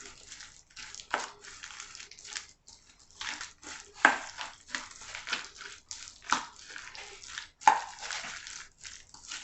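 Spoon stirring shredded lettuce, banana peppers and mayonnaise in a bowl, with irregular scraping and sharper clicks of the spoon against the bowl.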